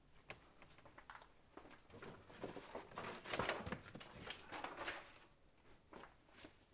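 Rustling and light knocks of a picture card being handled and moved among books on a bookshelf, loudest about three and a half seconds in, after a few faint ticks at the start.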